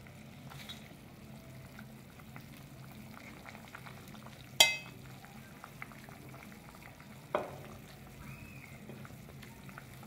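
Faint steady crackle of tortilla soup simmering in a clay pot while the salsa is ladled out. Two sharp clinks of the serving ladle against the ceramic plate ring out, a loud one about halfway through and a softer one about three seconds later.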